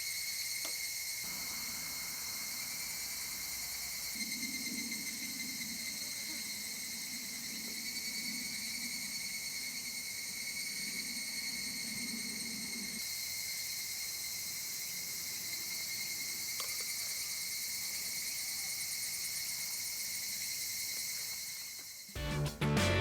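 Steady chorus of summer insects: a continuous high shrill without pauses. A faint low murmur comes and goes in the middle, and guitar music starts just at the end.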